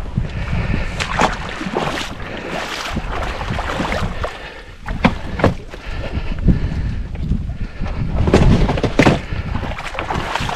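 Water sloshing and splashing with irregular knocks, over a low rumble of wind on the microphone.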